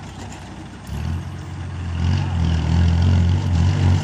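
Heavy diesel engine working hard under load. A deep, steady note comes in abruptly about a second in and grows louder toward the end.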